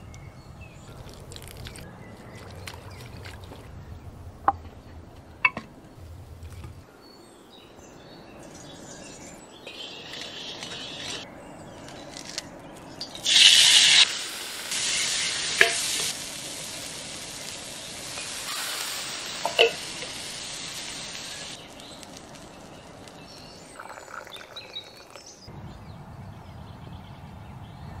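Campfire cooking sounds: food sizzling in several hissing bursts through the middle, with a few sharp clicks.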